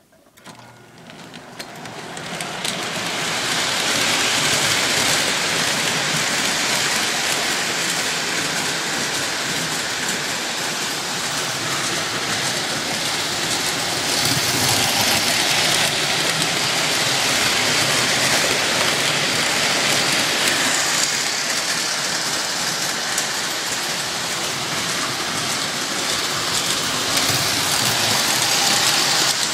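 O-scale model Big Boy steam locomotive and its freight train running on the track: a steady, loud rushing noise that builds over the first few seconds and then holds.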